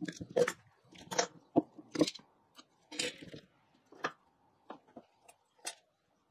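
Knocks and clicks of steel bar clamps and plywood blocks being handled on a wooden workbench: a handful of separate sharp knocks, most of them in the first half.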